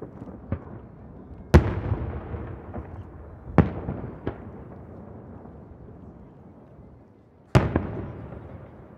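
Aerial firework shells bursting: three loud booms about one and a half, three and a half and seven and a half seconds in, with smaller bangs between, each boom trailing off in a long rolling echo off the hills around the bay.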